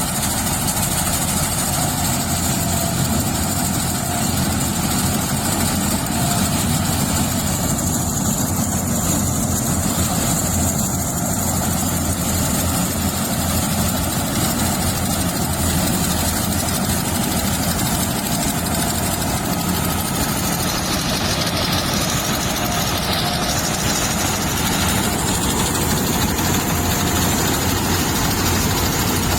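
Harvesting machine's engine running steadily during rice harvesting, a continuous heavy mechanical drone.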